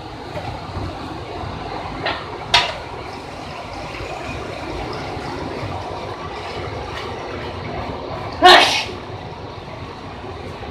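Raw cow's milk pouring in a thick stream from an aluminium milk can into an enamel basin, a steady rush and splash of liquid. A short loud voice cuts in briefly near the end.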